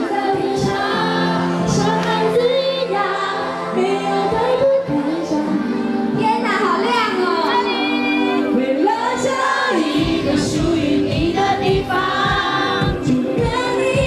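A woman singing a pop song live with a band, holding long notes with vibrato over sustained backing; about ten seconds in, drums and bass come in with a steady beat.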